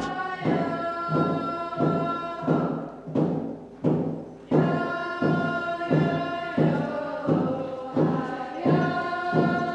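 Music: voices singing long held notes like a chant over a steady drum beat, about two beats a second, with a short break in the beat a little after three seconds in.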